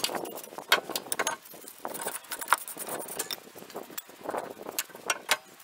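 Wire brush scrubbing the rear brake caliper bracket of a Fiat Ducato, irregular scratchy strokes and small metal clicks. The scrubbing is cleaning the pad seats so that the new pads can slide freely.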